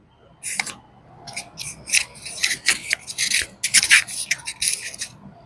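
Irregular scratchy rubbing and rustling of clothing and body against a yoga mat during a slow forward fold.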